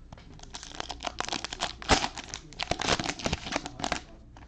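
Plastic cellophane wrapper of a Panini Prizm football cello pack crinkling and tearing as it is ripped open, a dense run of crackles lasting about three and a half seconds, sharpest about two seconds in.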